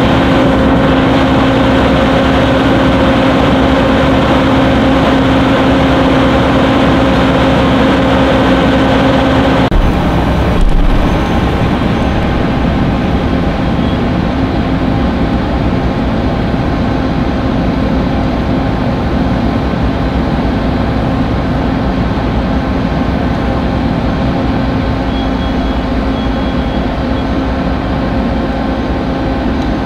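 Fire engines' diesel engines running steadily with a constant hum. About ten seconds in the sound changes abruptly with a brief knock, then the same steady engine noise continues a little quieter.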